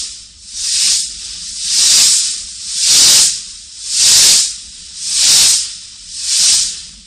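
Steam locomotive puffing slowly and evenly: seven hissing chuffs of exhaust steam, about one a second.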